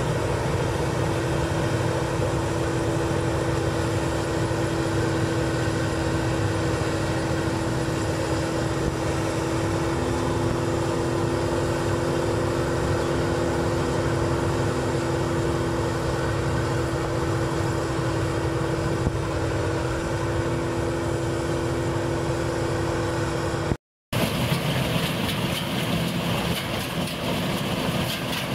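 New Holland 8070 combine harvester running steadily as it cuts rice: a continuous engine drone with a steady humming tone over it. The sound drops out for a moment near the end, then carries on harsher, with more hiss.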